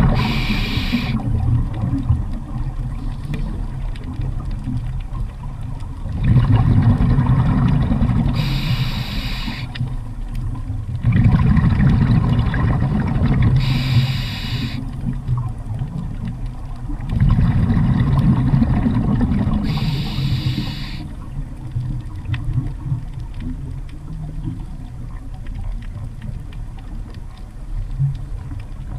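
Underwater sound of a scuba diver breathing on a regulator: a short hiss about every five to six seconds, with the low rumble of exhaled bubbles swelling and fading in between.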